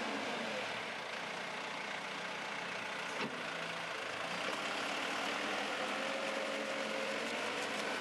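JCB 3CX backhoe loader's diesel engine running, its tones shifting in pitch as the machine works, with a single sharp knock a little over three seconds in.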